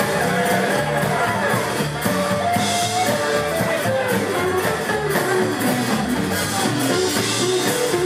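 Live rockabilly band playing an instrumental break: a melodic electric guitar lead over upright double bass, strummed acoustic guitar and a drum kit with cymbals.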